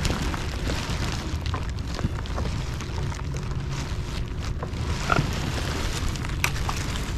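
Wind buffeting the microphone as a steady low rumble, with a few light clicks and knocks scattered through it.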